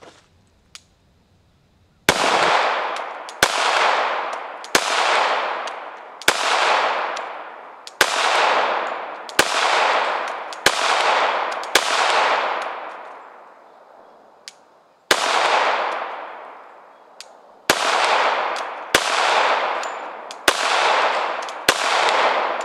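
Glock 21 Gen 4 .45 ACP pistol fired in slow deliberate shots, each with a long echoing tail: a string of eight about a second and a half apart, a pause of about three seconds, then five more.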